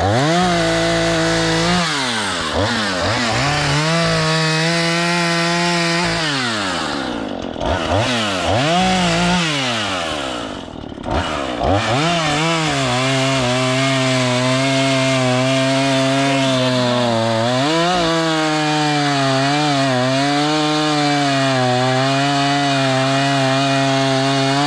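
Two-stroke chainsaw running and cutting wood. It revs up and drops back several times, then settles into a long cut with the engine pulled lower in pitch. It is not at full throttle, and the chain is getting dull.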